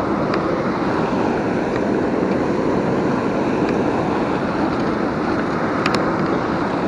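Steady rush of turbulent water pouring over the rocks below a dam, with a couple of faint clicks.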